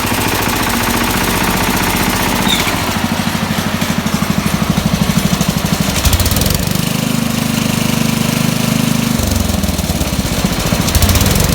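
1969 SS12 Hydro garden tractor's engine running, with a pulsing, uneven beat a few seconds in, then revved up about six seconds in and brought back down about three seconds later. The owner suspects the intermittent knock, which changes with RPM and PTO load, may mean the engine needs a rebuild.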